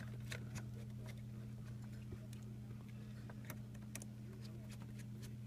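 Faint, irregular clicks and ticks of a Phillips screwdriver working screws out of a small device's plastic connector piece, over a steady low hum.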